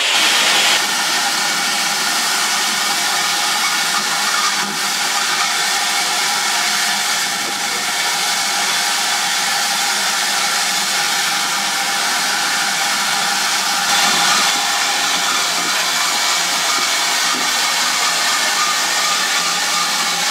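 Steady hiss of steam escaping from a standing GWR 5600 class 0-6-2 tank locomotive, No. 5643, with a faint steady whistle-like tone in the hiss.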